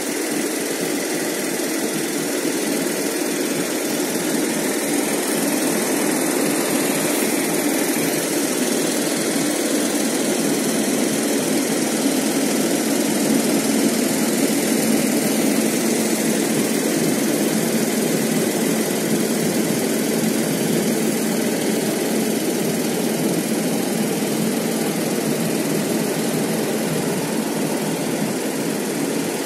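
Fendt tractor's diesel engine running steadily at idle close by, a little louder around the middle.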